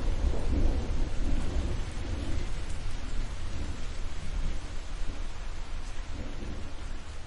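Rolling thunder rumbling low and slowly dying away, over steady rain.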